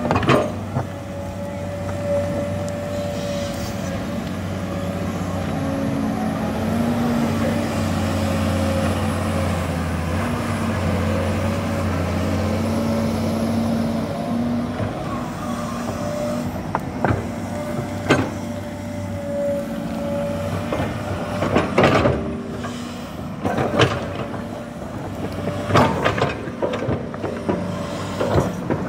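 Excavator's diesel engine running steadily under load, with a steady whine above it, building up and working harder for several seconds. In the second half come a series of sharp metal clanks and knocks from the machine working.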